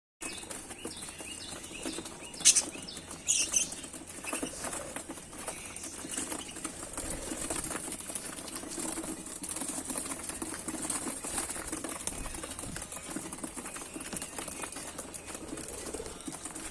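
Pet birds moving about and flapping their wings, with two loud flurries of flapping about two and a half and three and a half seconds in.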